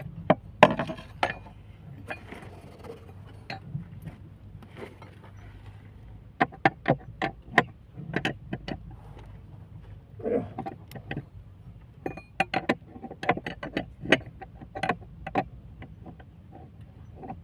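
Metal hand tools clicking and clinking on a pipe fitting as it is clamped tight, a series of irregular sharp clicks and knocks that come in clusters.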